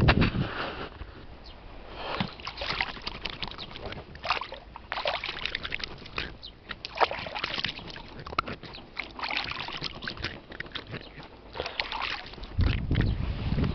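Hands rinsing and rubbing in river water over the side of an inflatable boat, with irregular splashing and sloshing throughout. A dull low thump comes right at the start and another near the end.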